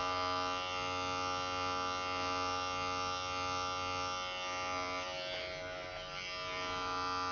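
Wahl Creativa cordless pet clipper running with a steady buzz as it is passed gently over the short-clipped groin coat of a toy poodle.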